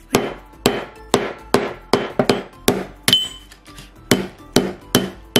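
Small hammer striking a Philips mobile phone held against a metal plate: about a dozen sharp blows at roughly two a second, a few leaving a brief high ring.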